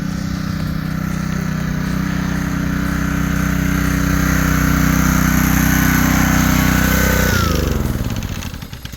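Gas pressure washer's Honda engine running steadily at full throttle, with the hiss of the water spray. About seven seconds in, the engine note falls and dies away as it is shut off.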